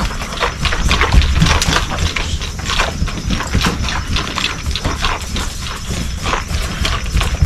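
A colt's hoofbeats as it moves forward on a lunge line: a run of irregular thuds over a steady low rumble.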